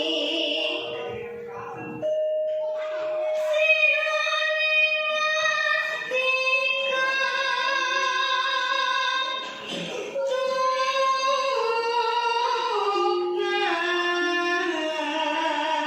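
A young girl singing a traditional Javanese song in long held notes, with pitch steps downward about two thirds of the way through.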